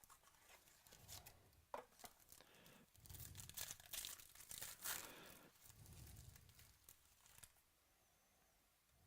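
Faint tearing and crinkling of trading card pack wrappers as they are torn open and handled, in bursts through the first seven or so seconds, then near quiet.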